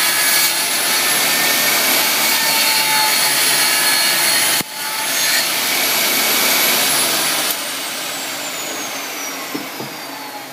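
Table saw ripping a narrow strip off a wooden bar, a loud steady whine of the motor and blade in the cut. About seven seconds in the saw winds down, its whine falling steadily in pitch.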